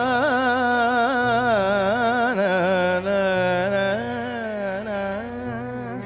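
Carnatic vocal alaap: a male voice singing wordless long vowels with wavering, sliding ornaments over a steady low accompaniment.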